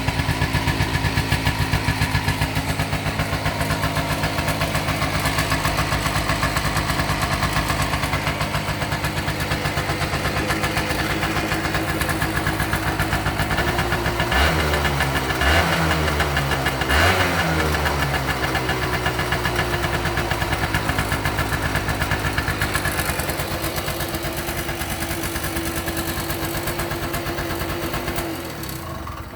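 Honda Tact AF51 scooter engine running steadily at idle, with a few quick throttle blips about halfway through that rise and fall back, then shut off at the very end. It runs without any abnormal noise and revs up freely.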